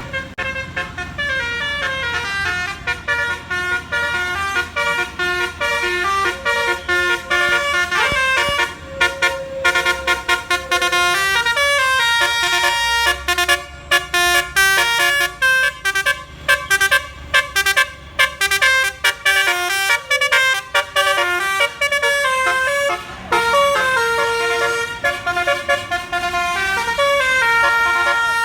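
Bus 'telolet basuri' multi-tone air horn playing a long melody: stepping note to note in a tune, with runs of short, quickly repeated notes and brief breaks, over a low engine rumble.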